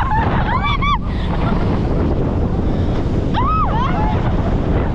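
Wind buffeting the microphone and water rushing past during a fast banana boat ride. Short high cries from the riders come through twice: about half a second in and again near four seconds.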